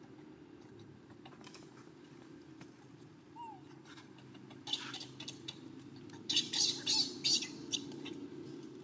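Monkeys: one brief high squeak, then two clusters of short, sharp, noisy scuffling sounds, the later cluster the loudest, over a steady low hum.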